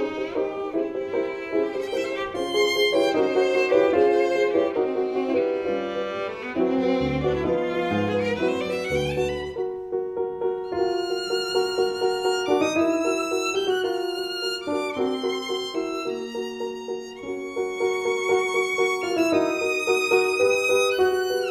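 Instrumental music: a violin plays a melody with vibrato over a held lower note, with a short run of low notes about halfway through.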